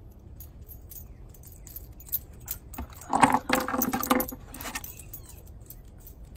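Metal tags on a dog's collar jingling and clinking as the dog comes right up to the microphone, with a louder, denser stretch of about a second around three seconds in.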